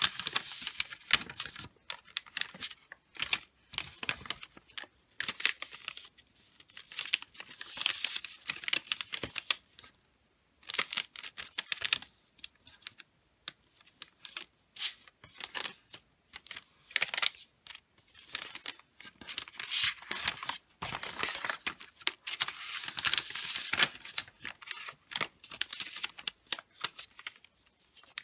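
Wrapping paper rustling and crinkling as it is folded and its creases are pressed flat by hand, in irregular bursts with short pauses between.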